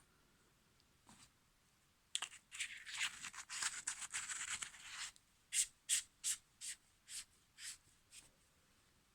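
Hands handling a small flashlight close to the microphone: a faint tick, then about three seconds of scratchy rubbing, then a run of about eight short scrapes that grow fainter.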